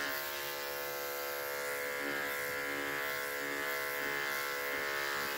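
Corded electric clippers buzzing steadily as they are pushed across short-pile faux fur, shaving it down.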